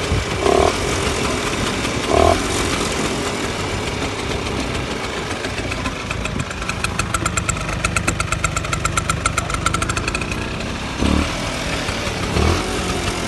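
The single-cylinder two-stroke engine of a 1970 Vespa Super scooter idling steadily, running again after its carburettor was cleaned. Midway, a fast pulsing high tone sounds over it for a few seconds.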